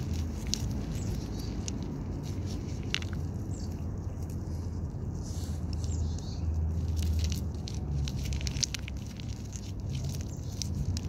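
A cat licking and chewing wet food out of a foil pouch held in a hand, with scattered small clicks and the pouch crinkling, over a steady low hum.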